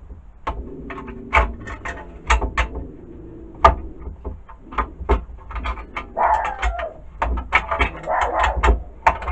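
Metal parts of a Black & Decker D-994 lathe attachment clinking and knocking as they are handled and taken apart, with irregular sharp clicks throughout. A dog barks in the background in the second half.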